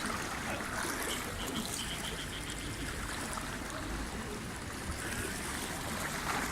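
Floodwater flowing and trickling steadily.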